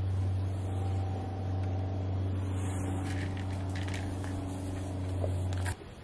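A steady low hum, even and unchanging, that cuts off suddenly near the end.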